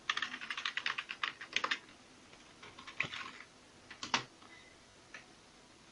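Typing on a computer keyboard to enter eWelink login details: a fast run of keystrokes for about two seconds, then a few scattered single keystrokes.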